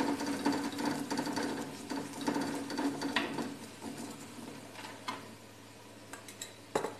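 A steel spoon scraping and clicking over a paratha on a flat tawa as oil is spread across its surface, with a steady hum in the first three seconds and a few sharper clicks near the end.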